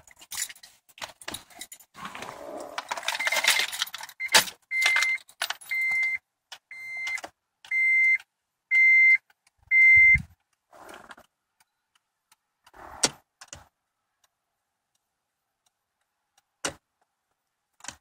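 Car keys jangling at the ignition, then a car's dashboard warning chime beeping about once a second, several times, with a low thump just after the last beep and a few sharp clicks later on.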